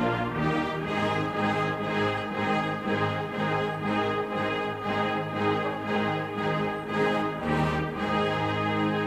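Orchestral classical music with sustained brass and string chords over an even pulse of about two beats a second.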